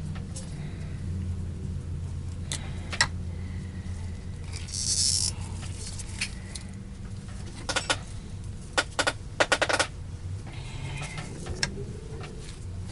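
Sharp clicks and taps of plastic parts of a turbo-brush floorhead being handled, some in quick clusters, with one short hiss of air or spray about five seconds in, over a steady low hum.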